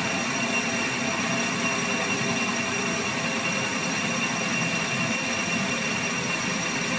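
Metal lathe taking a facing cut across a steel gear blank: the machine runs steadily with a constant whine while the tool shears chips off the face.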